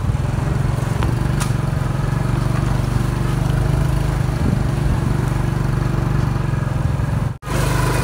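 Small motorcycle engine of a sidecar taxi running steadily while under way. The sound drops out for an instant about seven seconds in.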